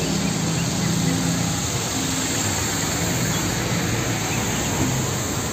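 Diesel engine of a MAN tanker truck running steadily as the truck drives past, over a constant hiss of road traffic.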